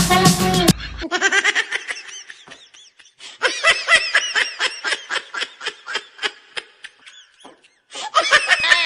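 Music stops about a second in. It is followed by a long run of laughter in quick repeated 'ha-ha' pulses that fade and come back, with a louder burst of laughter near the end.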